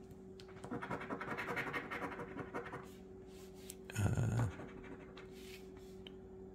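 Scratch-off lottery ticket being scratched, rapid rasping strokes lasting about two seconds, then a brief louder noise about four seconds in, over a faint steady hum.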